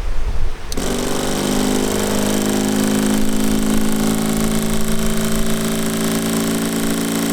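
Small electric water pump switching on suddenly about a second in, then running with a steady hum.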